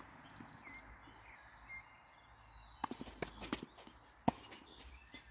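Footsteps on a clay tennis court: a quick, irregular run of steps starting about three seconds in, the loudest near the end. Faint birdsong before them.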